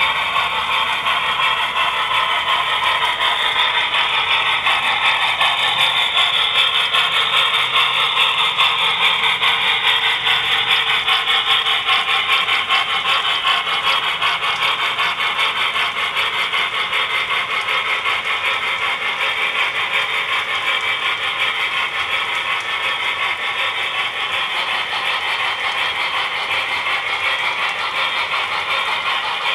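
Model freight train rolling past on layout track: a steady rattle of many small wheels on the rails with rapid fine clicking, a little louder in the first half.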